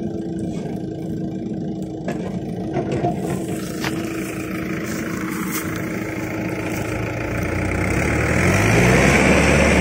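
Heavy diesel engine running steadily, growing louder and deeper from about seven seconds in.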